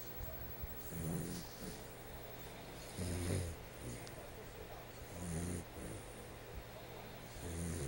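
Sleeping dachshund snoring, a low rasping snore about every two seconds, four in all, much like a person snoring.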